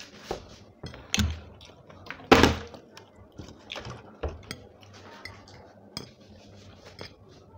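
Fork clinking and scraping against a plate of spaghetti, with scattered light knocks and a louder knock about two seconds in.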